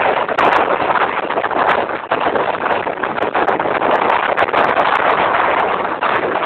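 Strong wind blasting the camera's microphone: a loud, continuous rushing buffet that dips briefly about two seconds in and again near the end.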